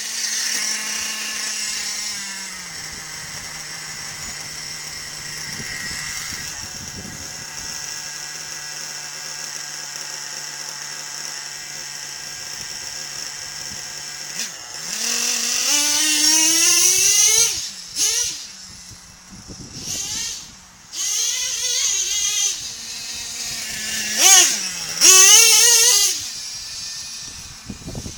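Small nitro engine of a radio-controlled monster truck idling steadily for about fourteen seconds. It then revs hard several times, each rev rising and falling sharply in pitch, as the truck drives off.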